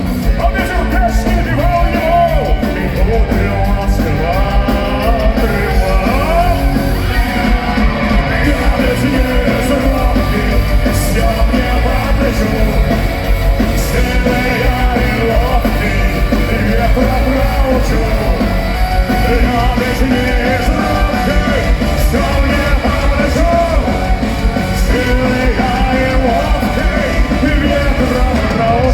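Live punk-rock band playing loudly, with singing and yelling over the music but no clear words.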